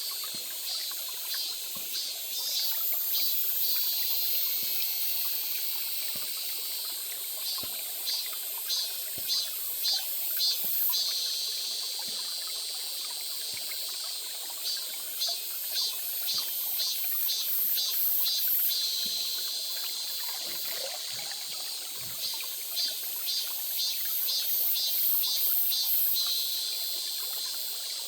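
A small stream trickling steadily, with bouts of rapid, evenly repeated high-pitched chirps over it.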